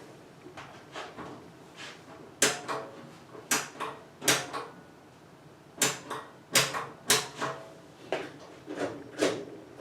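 Irregular sharp clicks and knocks, about nine of them, from hand work with parts and tools while wiring the truck's lights.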